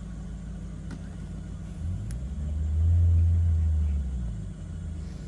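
Off-road 4x4's engine running low, then revving up about two seconds in, held high for roughly two seconds, and dropping back to a low run.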